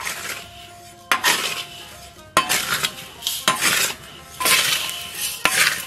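Metal spatula stirring small gravel stones in a wok, the stones scraping and rattling against the metal in about five strokes, roughly one a second. The stones are being dry-fried to heat them through.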